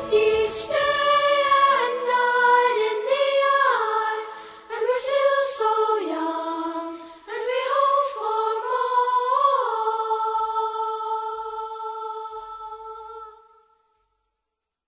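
Unaccompanied singing on the soundtrack: long held notes that step up and down in pitch, ending on one long note that fades out near the end.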